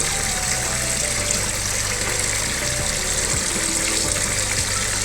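Water pouring steadily over grated cassava in a sieve, rinsing off its starch.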